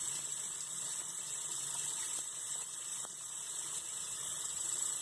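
Tap water running steadily into a sink as a cotton swab is held under the stream.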